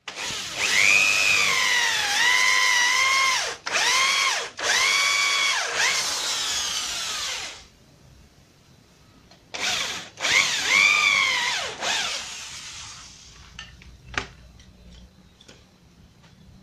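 Corded electric hand drill boring into a wooden frame, its motor whine wavering in pitch. It runs for about seven seconds with two brief stops, halts, then runs again for about three seconds, followed by a few light knocks near the end.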